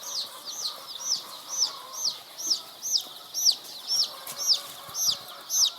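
Layer chick peeping loudly and regularly, about two high peeps a second, each rising then falling in pitch: the insistent distress peeping of a chick that, by the keeper's account, needs warmth.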